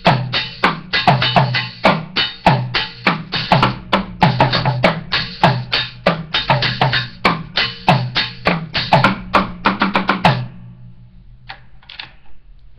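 Mini desktop drum kit, two small drums and a cymbal, played with drumsticks in a fast, uneven run of hits. The playing stops about ten seconds in, followed by a couple of light taps.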